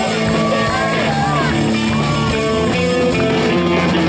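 Live rock band playing: electric guitars and drums, loud and steady, with a few bending notes high up.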